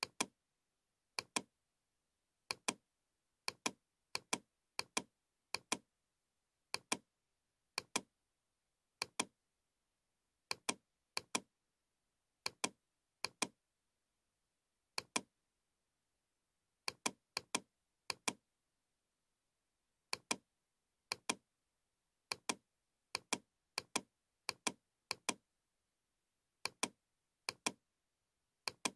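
Computer mouse clicks, each a quick click pair, at an uneven pace of about one a second with silence between. Each click places the next control point of a spline being traced in CAD software.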